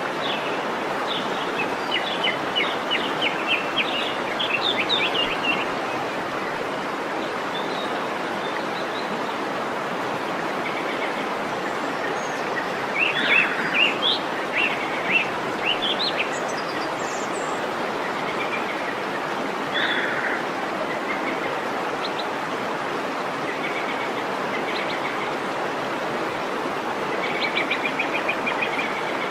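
Waterfall rushing steadily, with birds chirping and trilling over it in several short bouts, busiest about halfway through and again near the end.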